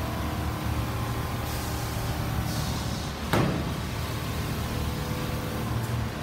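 Steady hum of single-head quilting machines and other machinery running across a factory floor, with one sharp knock about three seconds in.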